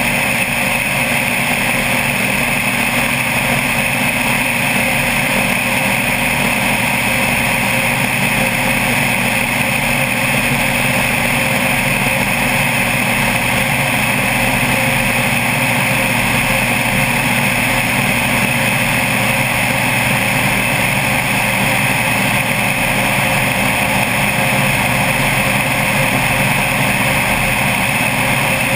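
Single-engine light aircraft's engine and propeller droning steadily in cruise, heard from a camera mounted on the outside of the plane.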